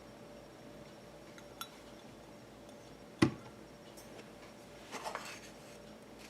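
Eggs being cracked on the rim of a bowl: one sharp knock about three seconds in, then a few lighter clicks of shell about two seconds later.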